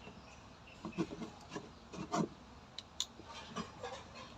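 Electrical wires being handled and twisted together into a splice: a handful of short, irregularly spaced scraping and rubbing sounds.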